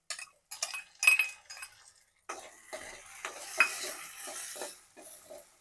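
A metal spoon taps and scrapes chopped tomato out of a steel bowl into a kadai, with a sharp clink about a second in. Then the tomato sizzles in the hot oil with the fried onions for about two and a half seconds while the spoon stirs and scrapes the pan.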